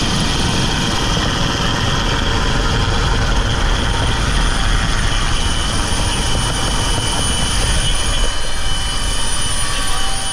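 Helicopter running steadily: a loud, even engine and rotor noise with a low rumble and a steady high whine.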